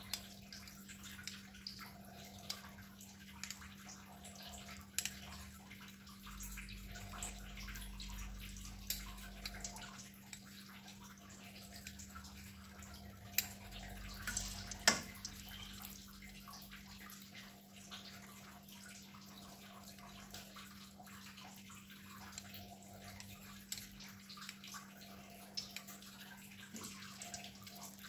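Tofu-batter balls deep-frying in hot oil in a wok: a soft, steady sizzle with scattered small crackles and pops. Two sharper clicks come about halfway through, over a steady low hum.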